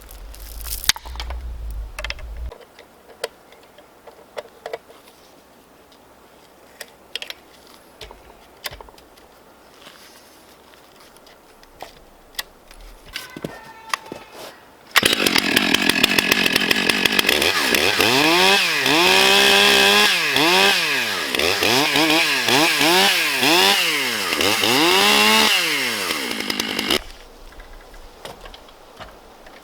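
Light clicks and knocks for about fifteen seconds, then a Stihl MS661 two-stroke chainsaw starts suddenly and runs, revved up and down about once a second, and stops abruptly some twelve seconds later.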